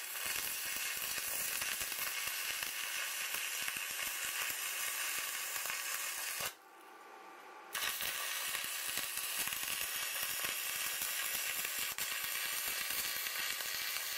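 Electric arc welding of a metal tube to a round plate: a steady crackling sizzle from the arc. It runs as two welds, with a pause of about a second roughly six and a half seconds in.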